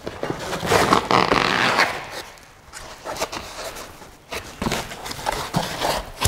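Foam packing insert scraping and rubbing against the sides of a cardboard box as it is worked loose and lifted out. There are a few sharp knocks in a quieter pause midway, and then the rubbing starts again.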